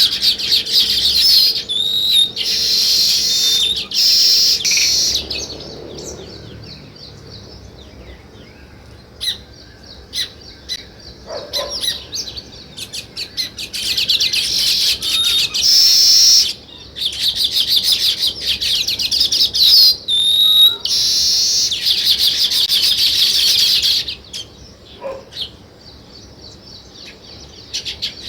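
A flock of small songbirds chattering in dense, rapid, high chirps. The chorus thins to a few scattered chirps twice, once after about six seconds and again near the end, then swells back.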